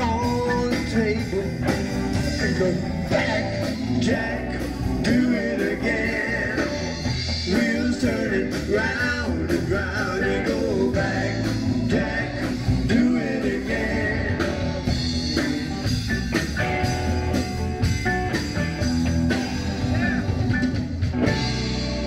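Blues-rock band music: electric guitar lines over bass and drums with a steady beat.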